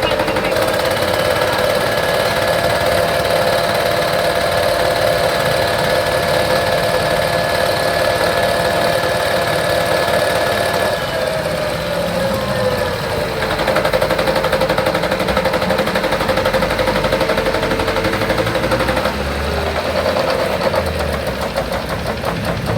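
FFC 23 disc mill running while grinding coffee: a loud, steady mechanical hum whose pitch drops about halfway through and shifts again near the end.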